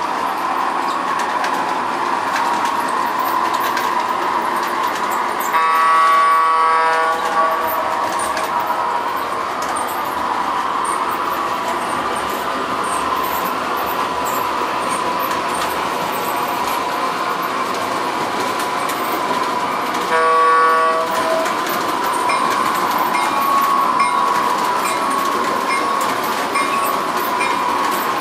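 MTH Ives Olympian Standard Gauge electric locomotive and passenger cars running on tinplate track, with a steady rolling noise of wheels and motor. Its sound system sounds the horn twice: about two seconds long around six seconds in, and briefly about twenty seconds in.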